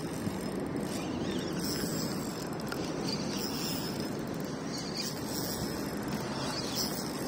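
Steady rustling and rubbing of a jacket sleeve brushing against a body-worn camera's microphone.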